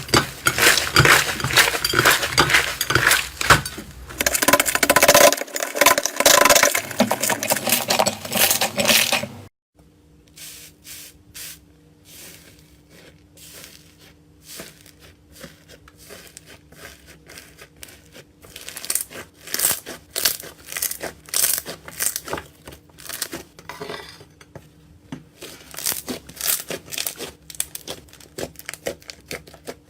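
Slime being squeezed and worked by hand: dense crackling and clicking, then, after an abrupt cut about a third of the way in, quieter and sparser clicks and pops over a faint steady hum.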